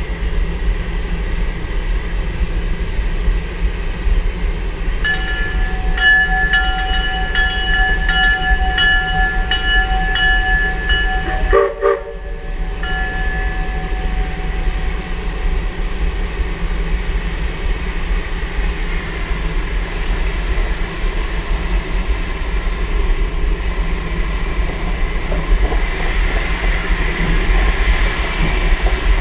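1915 Baldwin steam locomotive running along the track with a steady rumble and rail clatter. About five seconds in, its steam whistle sounds several tones at once, held for about six seconds.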